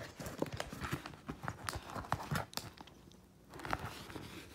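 Irregular taps, scrapes and rustles of a cardboard shipping box being handled and worked at with a small slicer blade. After a brief lull there is another cluster of knocks near the end.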